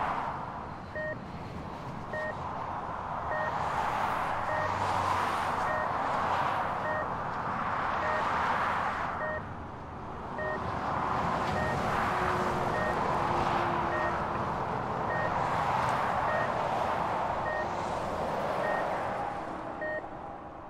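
Street traffic rising and falling as vehicles pass, with a vehicle's reversing alarm beeping evenly, about once every 1.2 seconds.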